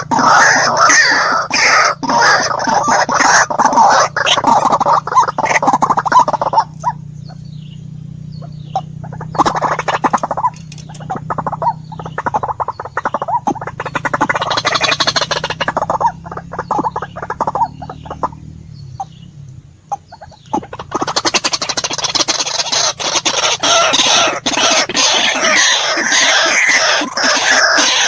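White-breasted waterhen calls: a loud chorus of rapidly repeated harsh croaks. About seven seconds in it thins to fainter, scattered calls over a low steady hum, then returns at full strength about twenty-one seconds in.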